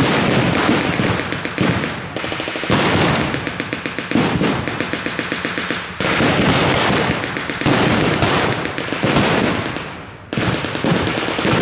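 Blank gunfire from rifles and machine guns in a staged battle. Quick bursts and single shots overlap throughout, with a few louder bangs standing out.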